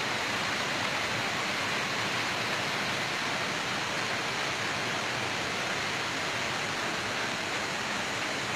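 Steady rush of running water through the concrete ponds of a trout farm, even and unbroken.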